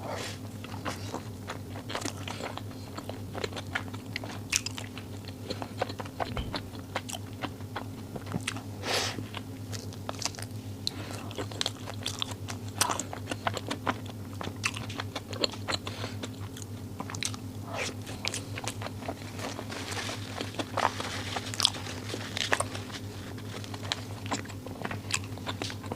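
Close-up sounds of a person biting and chewing oversized nuomici (sticky glutinous rice balls), with irregular wet mouth clicks and smacks throughout. A steady low hum runs underneath.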